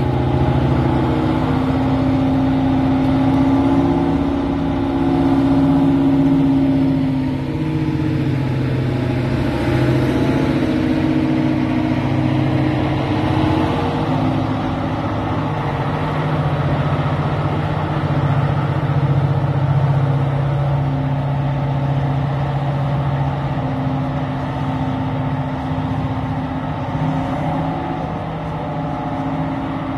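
Class 55 Deltic diesel locomotive's two Napier Deltic engines running steadily while the locomotive stands at the platform: a loud, continuous engine drone whose pitch shifts slightly now and then.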